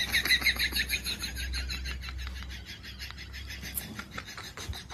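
Cat making a rapid run of high chattering chirps, strongest at first and fading after about two seconds, over a low steady hum that stops near the end.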